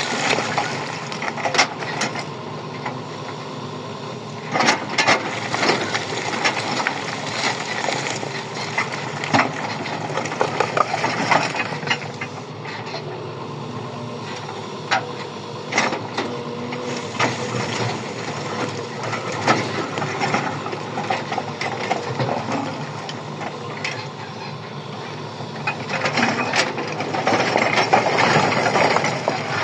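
Machinery running steadily, with irregular knocks and clatter over it, louder near the end.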